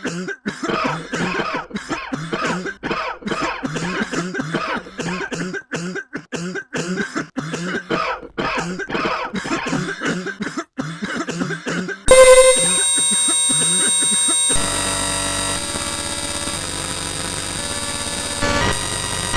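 Coughing over and over, about two to three short coughs a second, for about twelve seconds. It is cut off suddenly by a much louder, harsh electronic blast of many steady tones that holds to the end.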